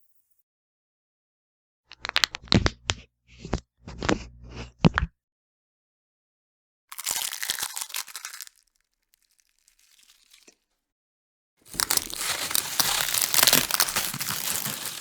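Bone-crack sound effects, in three separate bursts. First comes a run of sharp cracks and snaps, then a short crunch, then a longer dense crunching crackle near the end. Dead silence lies between them.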